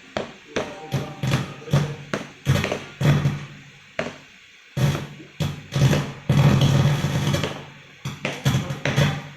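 Drum sounds from a Roland SPD-20X electronic percussion pad played through a speaker: irregular hits of kick and snare-type voices, with a denser run of strikes about six seconds in.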